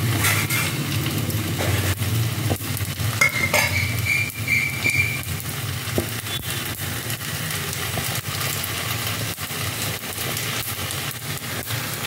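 Hot oil sizzling in a kadai, with mustard seeds crackling and popping as they splutter for a tadka. A brief high whistling tone sounds about three seconds in.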